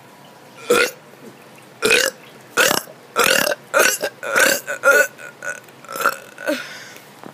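A child burping deliberately, a quick run of about eight short, loud burps starting just under a second in.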